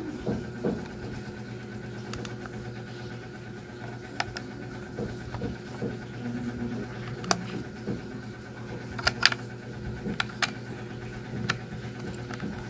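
A few sharp clicks of a plastic digital pocket scale and its AAA batteries being handled, two close together about nine seconds in, over a steady low hum.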